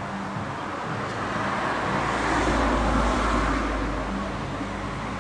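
A car passing by on the street, its engine and tyre noise swelling to a peak about three seconds in and then fading away.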